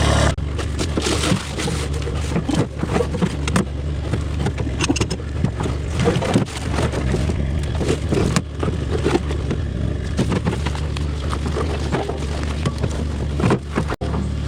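An engine idling steadily, with scattered knocks, clanks and scrapes throughout.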